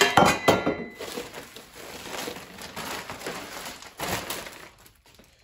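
Plastic bags and bubble wrap crinkling as packaging is pushed about on a bench, with a few metal clinks at the start as a stainless steel exhaust pipe is set down, and another loud rustle about four seconds in.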